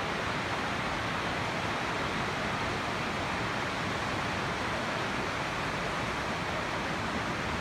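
Steady rushing of river water, an even hiss with no breaks.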